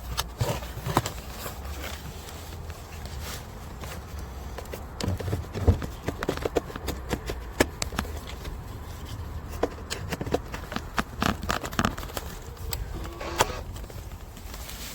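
Scattered clicks and knocks of jump-starter clamps and cables being handled and clipped onto a dead car battery, thickest in the middle stretch, over a low steady rumble.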